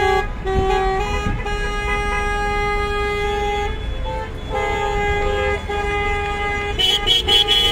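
Car horns honking in long held blasts, a few seconds each with short breaks between. A higher-pitched rapid beeping joins near the end.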